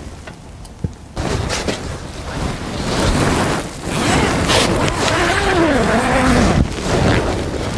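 Rustling and brushing of a quilted tent wall and of handling against the camera microphone. The sound starts about a second in and continues as a steady rustle, with a short wavering voiced sound, like a hum, about five seconds in.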